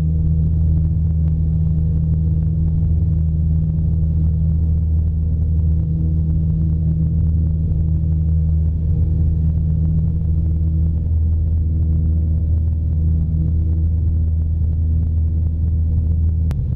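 Cessna 172's piston engine and propeller at takeoff power, heard inside the cabin during the takeoff roll and climb-out: a steady, loud low drone that holds the same pitch throughout.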